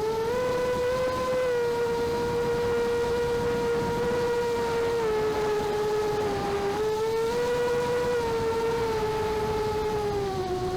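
Quad bike engine droning at a steady speed while driving, its pitch sagging and recovering slightly a couple of times over a rough low rumble.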